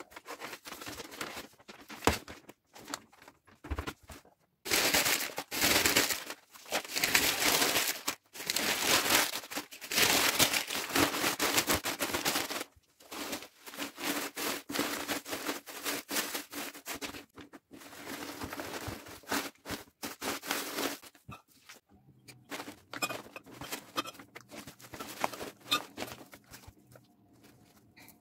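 Dry wood-wool packing and paper rustling and crackling as hands stuff it into a paper-lined laundry basket. The rustling is loud and continuous through the middle. Near the end it gives way to lighter handling and small knocks as items are set into the basket.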